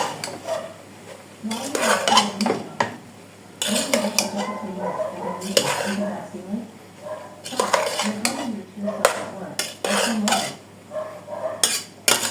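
A utensil stirring rice in a cooking pot, scraping and knocking against the pot in irregular strokes with short pauses.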